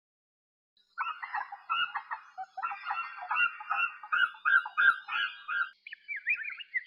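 Birds chattering, with a run of quick repeated chirps from about six seconds in.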